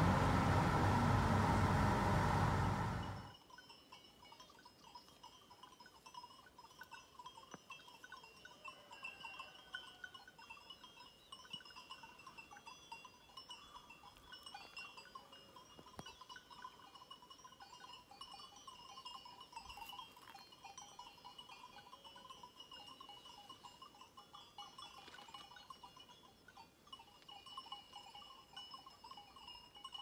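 A car driving along a road for the first three seconds, then, after a sudden cut to quiet, faint distant livestock bells tinkling continuously, as from a grazing flock of goats or sheep.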